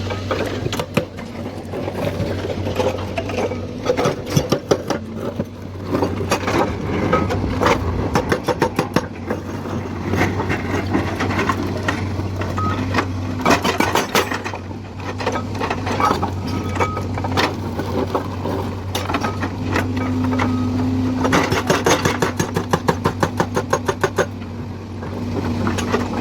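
Hydraulic excavator's diesel engine running steadily, with many sharp knocks of rock and metal and runs of rapid clatter over it.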